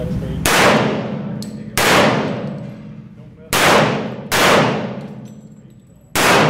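Five semi-automatic pistol shots at uneven intervals, roughly one to two seconds apart, each followed by a long echoing decay in an enclosed indoor range.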